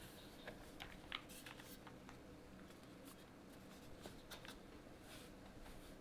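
Faint, unevenly spaced keystrokes on a QK75 mechanical keyboard with a POM plate, full foam, lubed Gateron Oil King linear switches and GMK keycaps: a dozen or so soft clicks at a slow, irregular pace.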